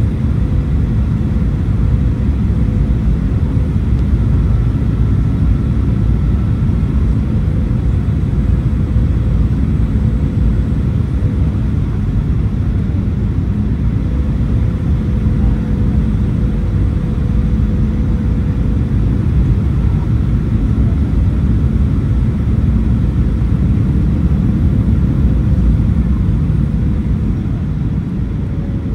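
Cabin noise of a Boeing 737-800 on final approach, heard from a window seat beside the engine: the CFM56-7B engines and airflow make a steady low rumble with a faint steady hum. The noise eases slightly near the end as the jet comes down over the runway.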